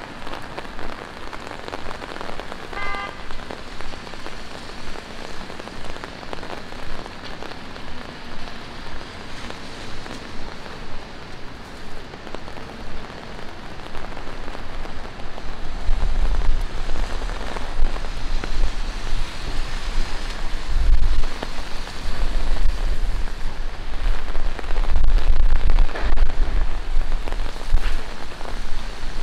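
Steady rain falling on pavement and street surfaces, a dense patter of drops. A short pitched tone comes about three seconds in. From about halfway, an uneven low rumble joins the rain and makes it louder.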